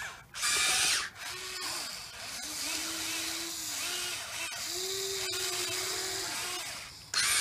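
Huina 580 RC excavator's small electric motors whining as it tracks forward and swings its arm, the pitch stepping up and down as each function starts and stops. A louder, harsher buzz lasts just under a second about half a second in.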